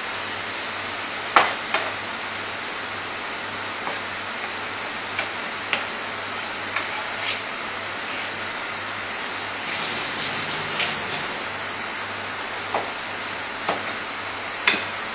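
Steady rushing noise of a commercial kitchen's ventilation, with scattered clicks and knocks of utensils and dishes; near the end, a couple of knocks of a knife on a plastic cutting board.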